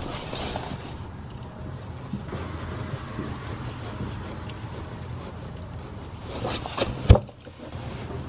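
Hands fitting a clamp on a power steering return hose, with faint rustling and handling noises over a steady low hum, and one sharp click about seven seconds in.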